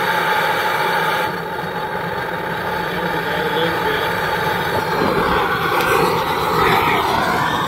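Coleman Exponent Denali backpacking stove burning, its burner flame making a loud, steady rushing hiss.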